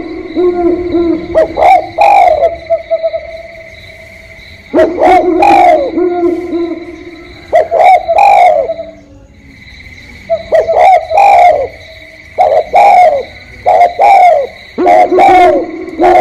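Spotted doves cooing: repeated low, soft coo phrases at two overlapping pitches, breaking off briefly about nine seconds in, over a steady high-pitched tone.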